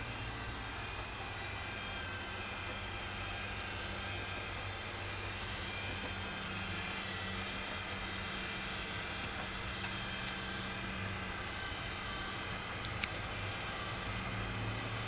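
Steady mechanical hum and hiss of running machinery, with one short tick near the end.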